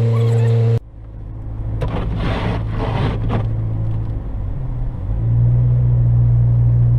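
Steady low drone of a car driving, heard from inside the cabin. The sound drops abruptly about a second in, with a few hissing passes around two to three seconds in, and the drone swells back near the end.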